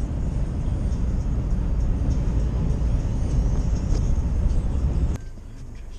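Road and engine noise inside a moving vehicle's cabin: a steady low rumble that cuts off suddenly about five seconds in.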